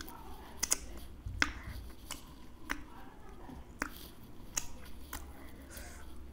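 Wet mouth clicks and lip smacks from fingers being licked clean, a sharp click about once a second.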